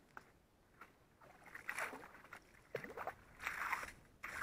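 Slush and water sloshing and scraping in an ice-fishing hole as a small hand tool works in it, in short, irregular swishing strokes.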